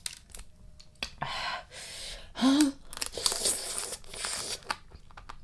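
Close-miked eating sounds: irregular crunching and chewing of spicy blue crab salad, with a short vocal hum about two and a half seconds in.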